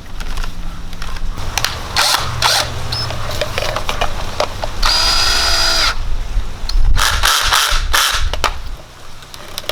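Power drill running in several runs, with one longer steady spin about five seconds in, mixed with knocks and rattles of hard parts being handled.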